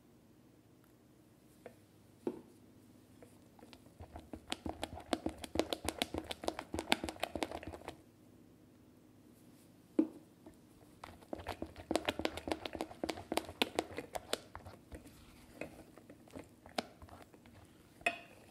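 Silicone spatula folding stiffly whipped cream in a glass bowl: soft, wet squishing and crackling in two spells of about four seconds each, as green food colouring is mixed in. A single sharp knock of the spatula against the bowl comes about ten seconds in.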